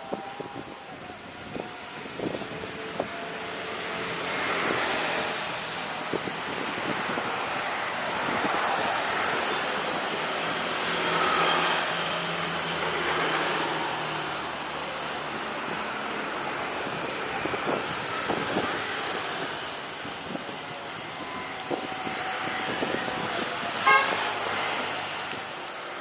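Distant jet engines of a twin-engine widebody airliner running as it turns on the runway: a steady rumble and hiss that swells twice. A brief sharp sound comes near the end.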